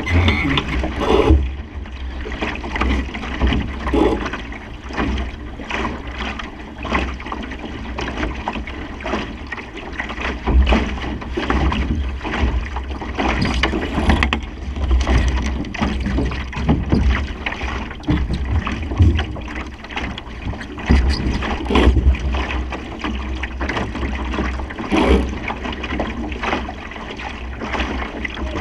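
Water rushing and splashing against the hull of a Supernova sailing dinghy under way in a fresh breeze, with irregular slaps and a steady low rumble of wind on the microphone.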